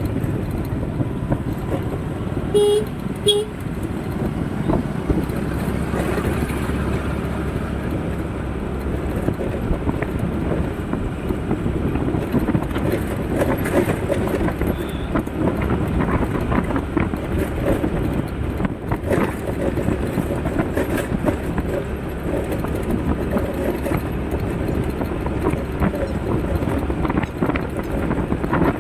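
Steady road traffic noise, with two short horn toots about three seconds in.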